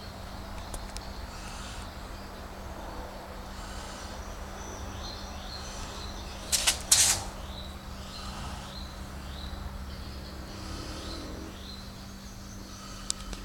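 Small birds chirping repeatedly in short, falling calls over a steady low hum, with two brief loud noises about halfway through.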